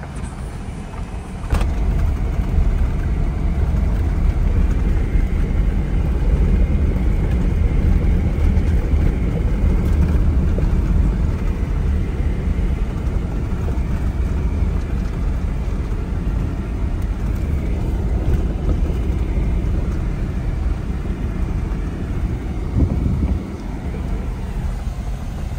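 Jeep Wrangler JL driving along a gravel road, heard from inside the cab: a steady low rumble of tyres on gravel and the running engine. It gets abruptly louder about a second and a half in.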